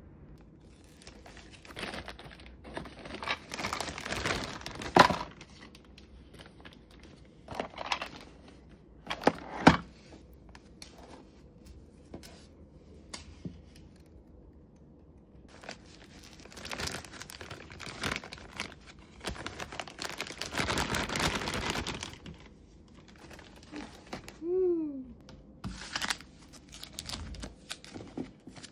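Gift wrapping paper being torn and crumpled in irregular bursts, with two sharp louder snaps in the first ten seconds and a brief falling pitched sound near the end.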